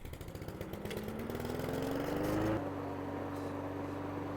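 Honda HRR216 lawn mower's 160 cc single-cylinder engine catching on a pull start. Its pitch climbs as it speeds up for about two and a half seconds, then settles into a steady run: the engine running again after a carburetor rebuild.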